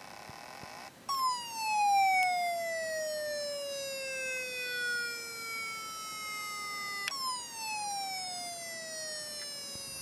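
Very old laptop hard drive making its strange noise: a high whine starts suddenly about a second in and slides steadily down in pitch, then jumps back up about seven seconds in and falls again.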